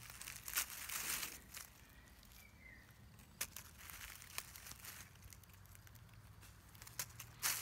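Rustling and crinkling of leaf litter and twigs on the forest floor as someone moves about by hand and foot, loudest in the first second and a half and again near the end, with scattered sharp clicks in between.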